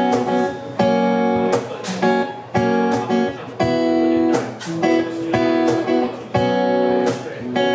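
Guitar music: strummed chords in a steady rhythm, changing about once a second, with a sharp stroke at each change.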